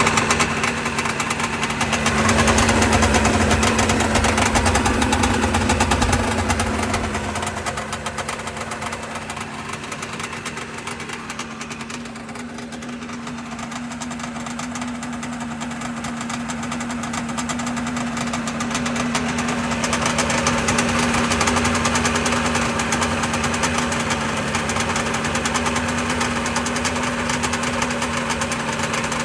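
Sea-Doo Rotax 587 two-stroke twin running steadily on freshly rebuilt Mikuni carburettors. It fades down for a few seconds in the middle, then comes back up.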